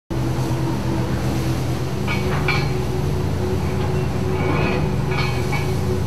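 A steady low mechanical drone with a fast rumbling pulse, like a boat's diesel engine running. Brief hissing flares rise over it a few times.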